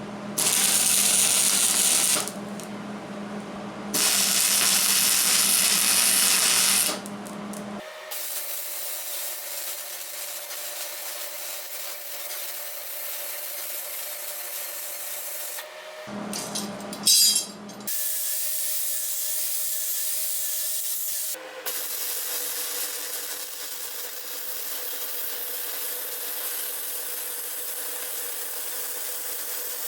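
Stick-welding arc crackling on steel, two tack welds of about two and three seconds, starting and stopping abruptly. After them, a quieter steady hiss runs on through several cuts in the footage.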